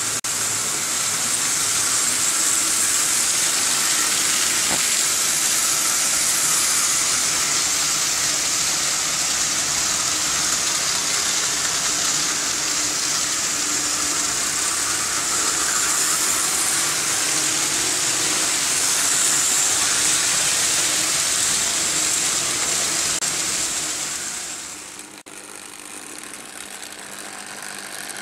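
Several vintage Märklin H0 model trains running on the metal M-track: a steady, hissing rattle of wheels on the stamped-steel rails with the whir of the locomotive motors. Near the end it drops and becomes quieter.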